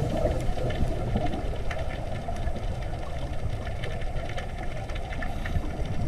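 Underwater ambient noise: a steady low rumble with many scattered clicks and crackles.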